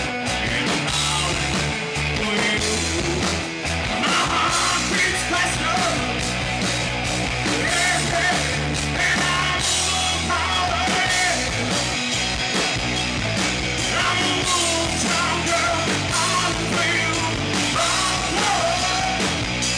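Live rock band playing: electric guitars, bass and drums, with a singer singing over them.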